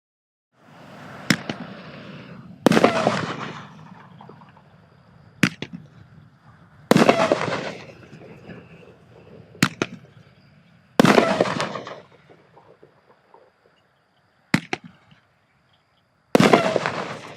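Fireworks going off in four pairs. In each pair a sharp bang is followed about a second and a half later by a louder burst that trails off over a second or so.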